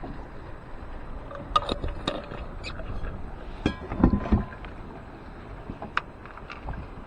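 Wind and water noise around a kayak, with scattered clicks and knocks of fishing gear being handled on board, a quick run of ticks a little past halfway and a few dull thumps against the hull just after, the loudest moment.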